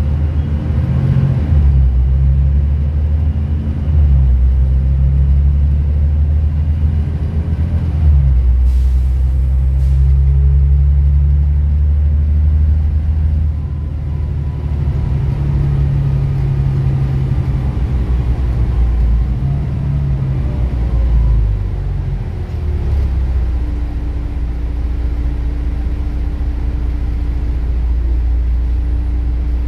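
Volvo B9TL double-decker bus heard from inside the lower-deck cabin: the six-cylinder diesel and driveline rumble as the bus pulls along, the rumble stepping up and down through gear changes. About halfway through a whine falls in pitch as the bus slows, and for the last few seconds it settles to a steady low hum while the bus idles in traffic.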